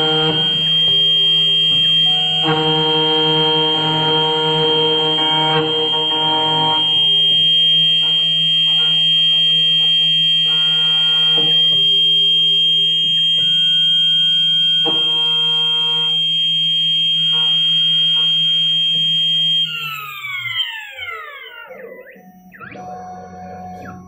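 2M2 Magic Tank key cutting machine's spindle whining steadily while milling a HON66 key blank, its tone shifting as the cut goes on. About 20 s in, the spindle stops and the whine falls away in pitch, followed by a quieter, lower machine hum.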